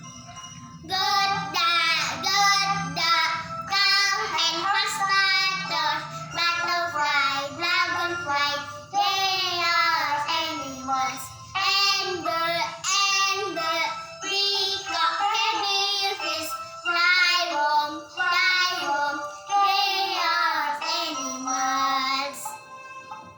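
A young girl singing a melody solo, in phrases of a few seconds each with short breaths between them.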